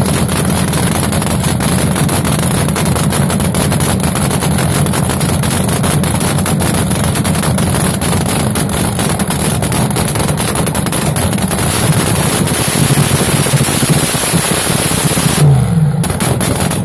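Front-engine dragster's exposed V8 running through open zoomie headers, a loud, steady, rough idle. Near the end the throttle is blipped and the revs rise briefly.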